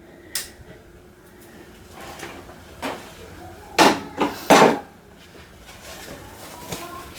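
A few sharp knocks and clatters of hard objects being handled, a single click near the start and a louder cluster about four seconds in.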